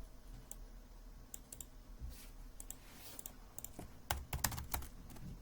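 Typing on an HHKB Type-S keyboard with its quiet Topre switches: scattered soft keystrokes, with a quick run of several keys about four seconds in.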